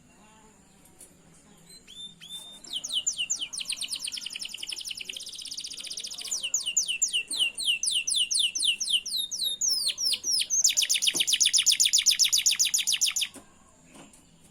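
Domestic canary singing: a long song made of fast trills, each phrase a run of quickly repeated high falling notes, the speed changing from phrase to phrase. It starts about two seconds in and stops abruptly near the end.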